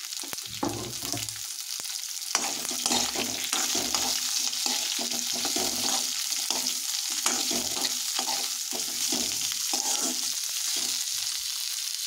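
Sliced onions and green chillies sizzling in a little hot oil in a metal kadhai, with a steady hiss throughout, while a steel ladle stirs them, scraping and knocking against the pan at irregular moments.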